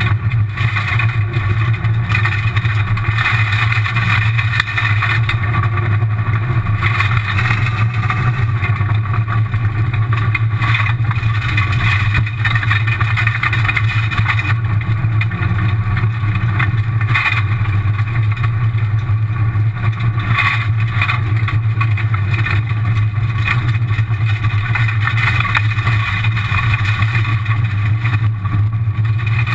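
Rally car's engine running hard at speed, heard from inside the stripped cabin as a steady loud drone, with gravel noise from the tyres and a few sharp knocks from stones or bumps hitting the car.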